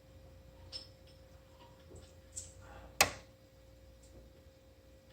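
Quiet room tone with a few faint clicks and one sharp tap of a hard object about three seconds in.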